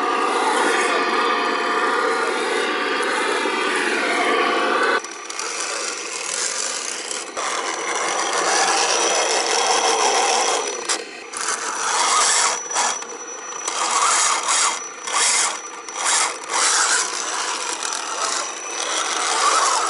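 Electric drive motor and gearbox of an RC scale crawler truck whining as it grinds through deep mud. The sound changes abruptly about five seconds in. In the second half the throttle is pulsed, so the whine stops and starts several times.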